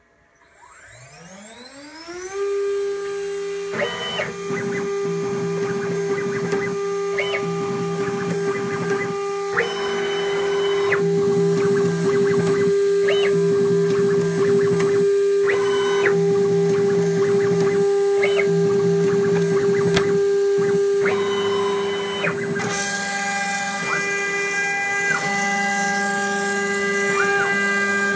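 CNC milling spindle spinning up to speed, its whine rising over the first two seconds and then holding steady, while the cutter machines lead acrylic in repeated short passes that come and go every second or two. Near the end a louder, hissing cutting noise joins in.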